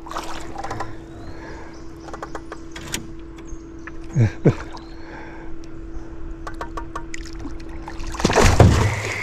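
A hooked bowfin thrashing and splashing at the water's surface beside a small boat, with scattered knocks and clicks, and a loud splash about eight seconds in. A steady hum runs underneath.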